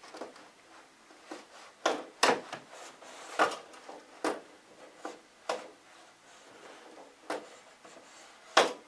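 Scattered knocks and clunks, about eight in all, as an electric wall-panel heater is lined up and fitted onto its wall-mounted brackets; the loudest knock comes near the end.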